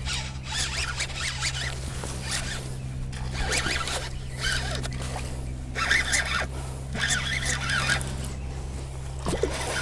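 Baitcasting reel being cranked in short raspy spells, a zipper-like whirr, as a hooked fish is reeled in.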